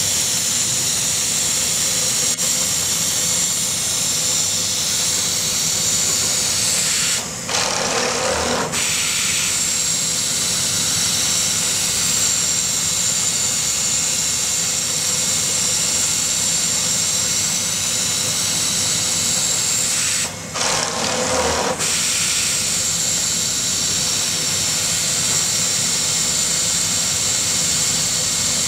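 CNC template sewing machine's laser cutting device trimming a shirt collar band: a steady hiss that cuts out briefly twice, about seven and twenty seconds in.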